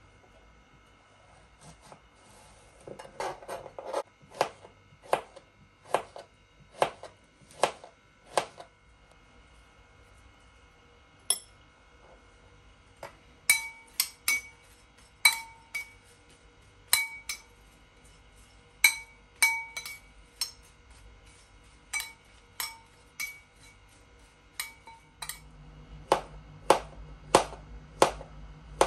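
Kitchenware being knocked and clinked, a utensil striking dishes in a series of sharp taps, several with a short ringing clink. A low hum comes in near the end under louder knocks.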